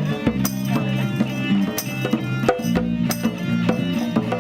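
Live music with instruments and percussion, played with a steady beat and sustained pitched notes.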